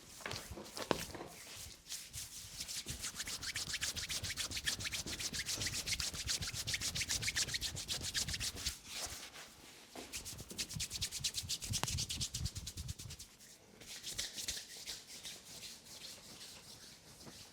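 A masseur's hands rubbing briskly over bare skin during a body massage: quick, rhythmic friction strokes that come in several bouts with short lulls between them.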